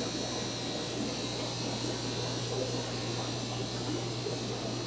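Steady fish-room background: a low electrical hum with the even bubbling and water noise of air-driven sponge filters in the aquarium tanks.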